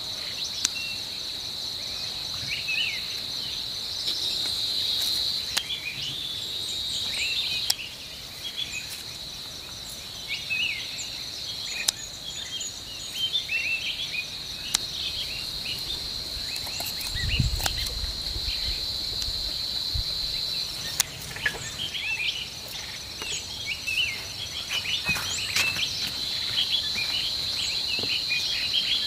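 Insects keeping up a steady, high-pitched chorus, with small birds chirping over it. Now and then comes a sharp click of garden scissors snipping through cherry tomato stems.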